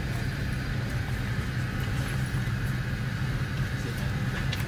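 Steady low hum inside the cabin of an Airbus A330-300 airliner, with a faint hiss of air above it, and a couple of faint ticks near the end.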